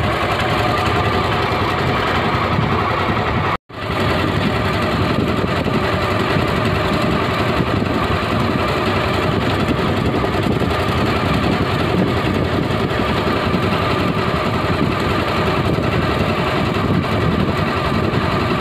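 Boat engine running steadily, an even drone that cuts out for a split second about three and a half seconds in, then carries on.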